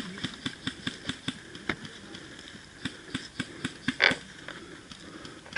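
A series of sharp clicks and snaps, about four a second at first and then scattered, with a louder rasping burst about four seconds in.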